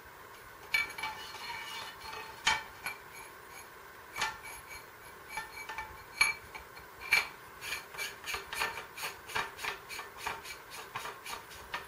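A paintball marker's barrel being screwed in by hand: short rasping strokes of the threads turning, a few spread out at first and then quicker, about two to three a second, near the end.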